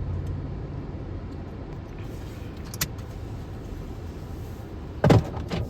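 Car cabin road noise while driving: a steady low rumble, with a single click near the middle and a brief louder sound near the end.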